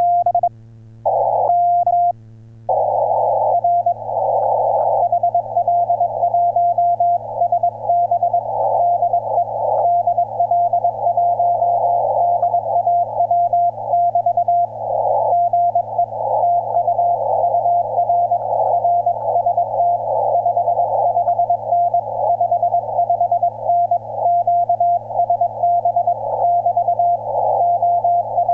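Morse code on an HF amateur radio transceiver: a single steady-pitched tone keyed on and off in quick dots and dashes. A couple of seconds in, band hiss comes up around the tone.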